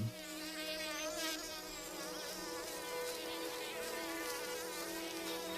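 Bumblebee buzz-pollinating a nightshade flower: a steady, pitched buzz with a clear musical note.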